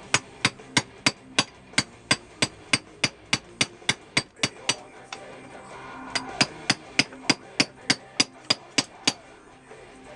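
Hand hammer striking a steel chisel into marble, sharp clinks at about three blows a second: roughing out, cutting a line into the stone. The blows pause for a second or so near the middle, resume, and stop about a second before the end.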